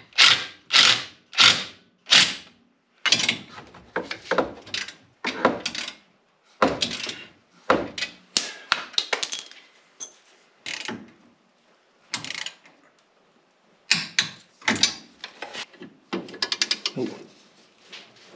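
Hand ratchet wrench turning bolts on a snowplow mount bracket, clicking in repeated strokes. The strokes come about every two-thirds of a second at first, then in irregular bursts with pauses.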